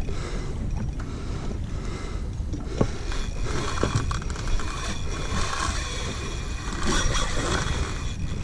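Fishing reel working against a hooked amberjack: the reel is cranked while the fish pulls line back off the drag, with thin whining tones and light mechanical clicks. This is over a steady wash of wind and water noise.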